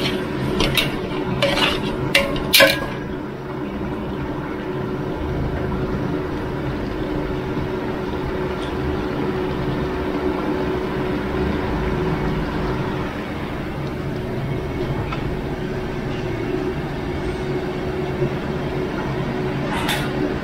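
A metal spatula clanks against a large wok four times in the first three seconds of stir-frying. After that comes a steady hiss with a low hum as the wok goes on cooking.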